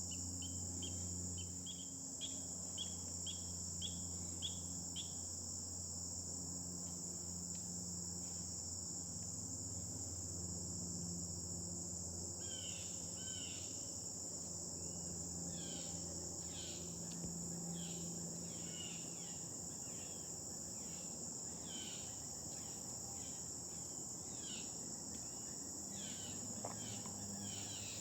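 Steady high-pitched evening insect chorus. Over it, a run of short rhythmic chirps about twice a second in the first few seconds, and from about twelve seconds in, many quick sliding chirps.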